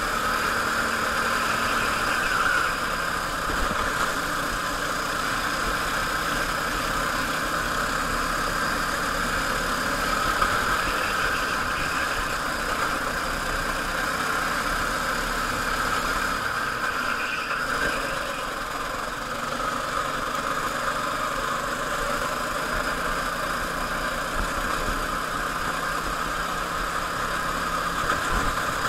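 Go-kart engine running steadily at racing speed, heard from on board the kart, easing briefly about two-thirds of the way in.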